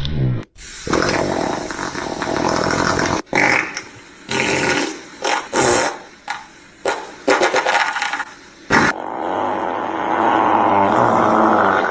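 Fart sound effect: a string of fart noises of different lengths, broken by short gaps, then a long drawn-out one from about nine seconds in.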